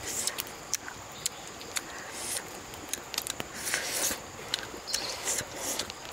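Close-up eating sounds: chewing and lip-smacking on grilled fish, with small clicks of fingers picking at the flesh, over a faint steady high whine.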